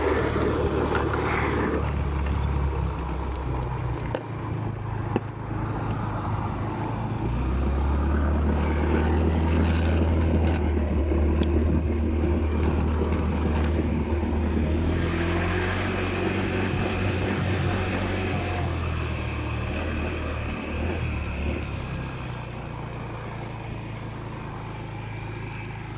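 Scooter engine running while riding, with a steady low engine note that grows louder about seven seconds in and drops away near the end.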